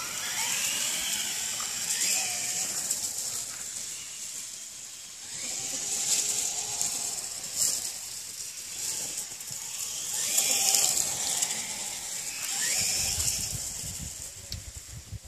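Axial Yeti RC rock racer's brushless motor and drivetrain whining on a 2S LiPo, the pitch rising and falling through about three bursts of throttle as it drives across the grass.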